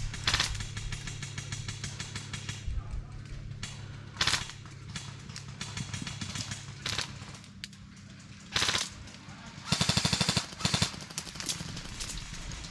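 Airsoft guns firing in several rapid bursts, the longest and loudest about ten seconds in.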